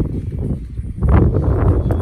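Wind buffeting the microphone: a loud, low rumble that gets louder about a second in, with a few faint clicks and knocks of the AR pistol being handled.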